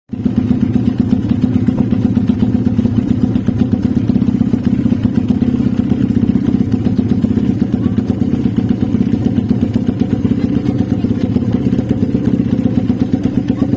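Suzuki RM-Z450 motocross bike's single-cylinder four-stroke engine idling steadily with a rapid, even exhaust beat.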